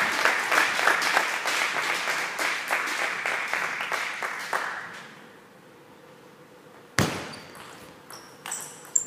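Table tennis rally: the celluloid-type ball clicking off bats and table, with one sharp crack about seven seconds in and a few lighter clicks near the end. A dense patter of crowd noise and clapping fills the first five seconds, then fades away.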